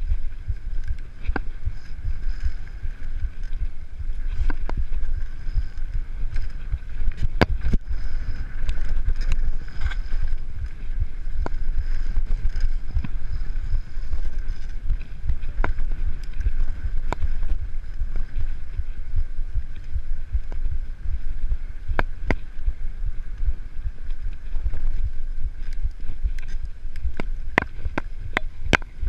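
Mountain bike riding on a dirt trail: a steady low rumble of wind on the microphone and tyres on the ground, with sharp clicks and knocks as the bike rattles over bumps.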